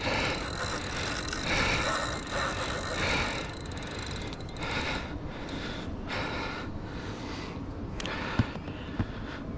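Fishing reel being cranked, a whirring that swells and fades with each turn, about three turns every two seconds. Two short sharp knocks near the end.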